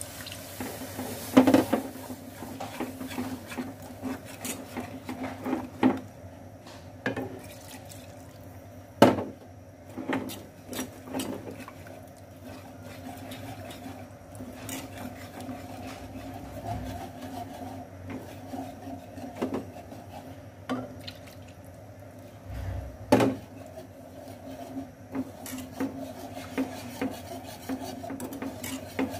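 Wire whisk clinking and scraping against a metal pan, with irregular clicks and a few sharper knocks, as milk is whisked into a butter-and-flour roux to make a white sauce. Milk pours into the pan at the start.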